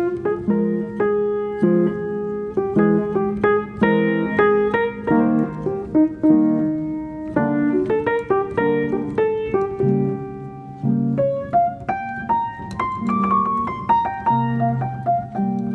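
Background piano music: single notes and chords struck one after another in a continuous flowing melody.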